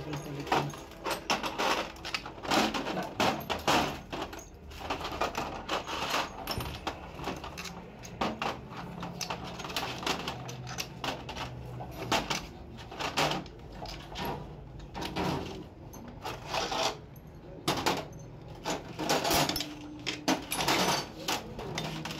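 Steel bolts clinking against each other and against the aluminium crankcase of a 200cc loader rickshaw engine as they are handled and fitted into the case during assembly: irregular metallic clicks and taps.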